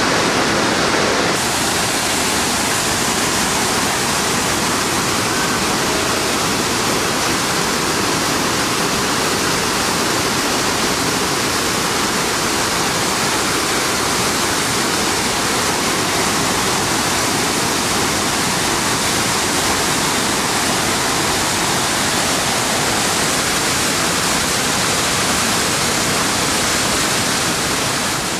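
Loud, steady rushing of the flooded Wairua River's fast water, an even unbroken noise.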